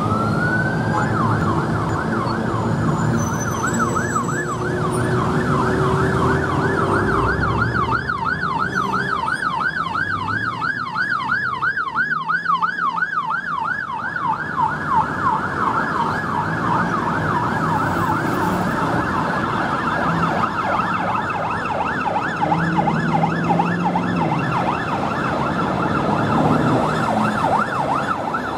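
Siren of an unmarked fire officer's car on a call: a rising wail just after the start that breaks into a fast yelp, about six swings a second, kept up throughout over passing traffic.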